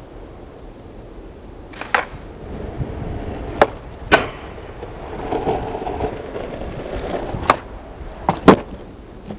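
Skateboard wheels rolling on concrete, with sharp clacks of the board hitting the ground as it is pushed, popped and landed: a double clack at about two seconds, single ones a few seconds in, and a close pair near the end, the loudest of all, as a flip trick is popped and landed.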